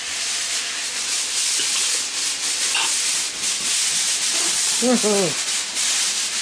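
Steady hissing noise, with a short hummed 'mm' from a person's voice, falling in pitch, about five seconds in.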